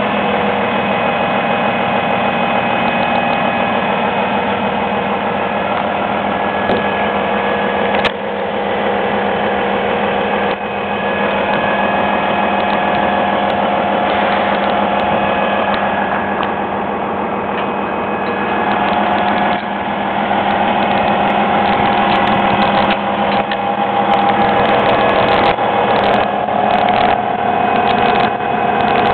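Volvo EC700BLC crawler excavator driving on its tracks, its diesel engine and hydraulics running steadily while the steel track links clank and rattle. The clanking grows busier in the second half.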